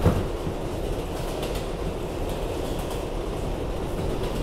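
R188 subway train in motion, a steady rumble of wheels on rail. There is a sharp knock at the very start and a few light clicks as the wheels pass over rail joints.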